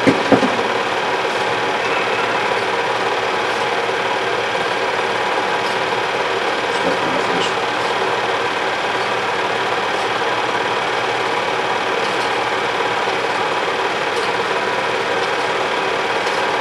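Home-movie film projector running: a steady mechanical whir and clatter from its motor and film-advance mechanism.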